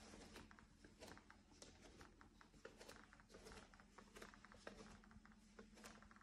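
Faint creaks and clicks from a plank floor under slow barefoot steps: many short, irregular ticks each second over a low steady hum.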